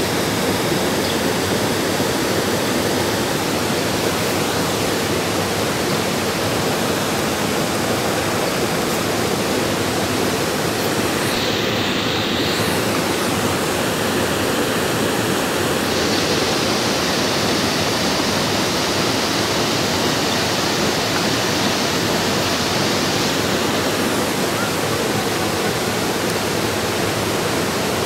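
Water rushing steadily over the small terraced travertine cascades of Havasu Creek: a constant, even rush of falling water.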